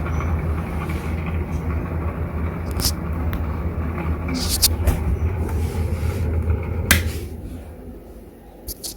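Clipsal Airflow CE250 250 mm kitchen exhaust fan running with a rough, steady low hum and occasional clicks: the sound of badly worn bearings. A loud click about seven seconds in is followed by the hum fading away.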